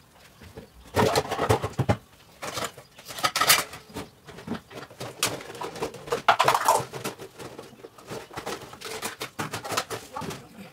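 Plastic food containers and lids knocking and clattering as they are lifted off a dish drying rack and stacked to be put away, with a few short calls in the background.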